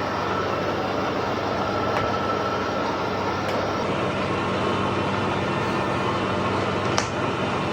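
Colchester Triumph 2000 lathe with a geared, oil-bath headstock running steadily under power, with a constant whine over the machine noise. There is one sharp click about seven seconds in.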